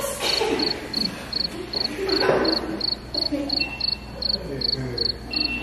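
Cricket chirping: an even series of short high chirps, about three a second, with a thin steady high whistle coming in partway through.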